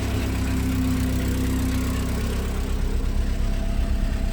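1990 VW Golf Mk2's four-cylinder engine idling, its exhaust loud and rough through a bad resonator. The idle pulsates slightly: it is rough, though better than before.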